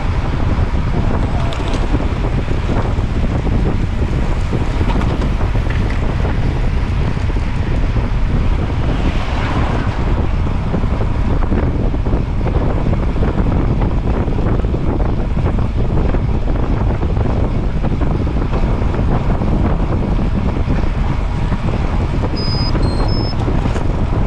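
Steady, loud wind buffeting on the microphone of a moving camera, a constant low rumble. A few short high beeps sound near the end.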